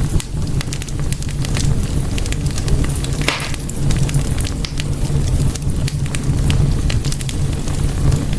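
Wood fire burning in a fireplace: frequent sharp crackles and pops over a low, steady rumble of flames, with one longer hiss a little over three seconds in.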